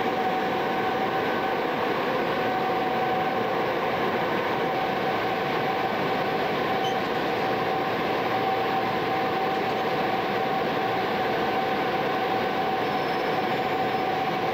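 SNCB class 20 electric locomotive standing with its cooling blowers and electrical equipment running: a steady whirring rush with a constant high whine over it.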